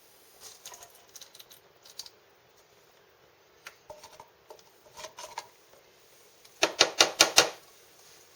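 Small clicks and taps from handling parts by hand, then a quick run of about six sharp clicks near the end.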